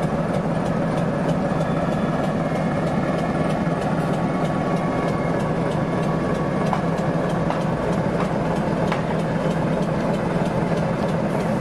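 BDŽ class 55 diesel locomotive's engine running steadily at low revs as the locomotive creeps slowly forward, with faint light clicking over the drone.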